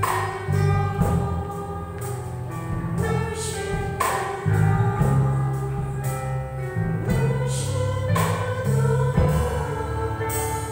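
Live gospel worship song: several women's voices singing long held notes together into microphones, with electric keyboard and a drum kit whose cymbal crashes come at a regular beat.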